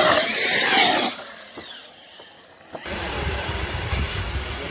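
Electric RC truck running on a dirt track: a loud high whine and hiss from its motor and tyres for about the first second, then fading. About three seconds in the sound changes abruptly to a steady low rumble with a faint hiss.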